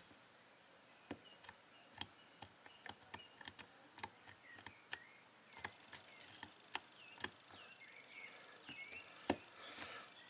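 Combination lock being picked by hand: faint, irregular small clicks of the number dials turning and the pick working against the lock, with faint short squeaks in between.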